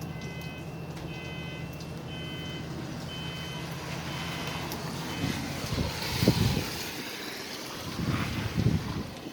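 Squashni Micro fire-alarm base sounders (Eltek-branded) sounding their intermittent pulse tone: short shrill beeps of about half a second, one every 0.8 s or so. From a little past halfway, bursts of rushing, rumbling noise partly cover the beeps.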